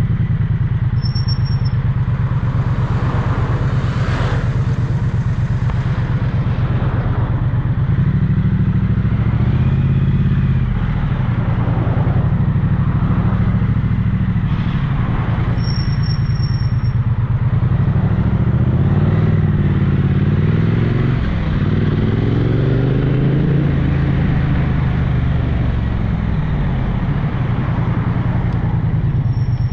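Triumph 900cc parallel-twin motorcycle engine running on the move, its revs rising and falling as the bike accelerates and changes speed. A short high-pitched beep sounds a few times.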